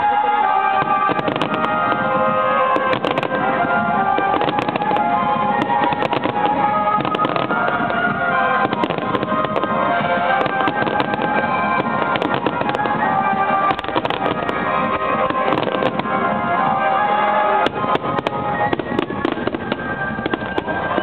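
Fireworks bursting in a rapid, continuous barrage of sharp bangs and cracks, with music playing underneath.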